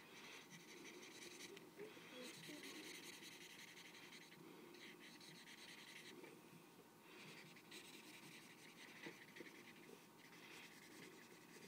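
Faint scratching of a blue Hi-Liter highlighter's felt tip scrubbed back and forth over paper while colouring in. It comes in stretches of a couple of seconds, with brief pauses between them.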